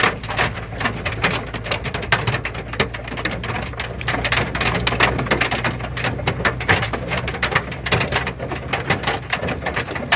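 Hail striking a car's roof and windshield, heard from inside the cabin: a dense, irregular clatter of hits over the steady low drone of the moving car.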